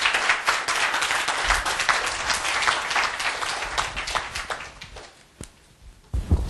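Audience applauding, the clapping thinning out and fading after about five seconds. A short noise comes just before the end.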